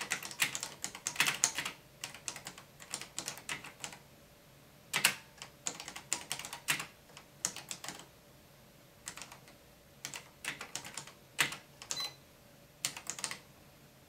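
Keys of a Tandy electric typewriter/word processor keyboard being typed on, in irregular runs of clicks with short pauses between words. A short high beep sounds about twelve seconds in, the machine's warning that the line is nearing its right margin.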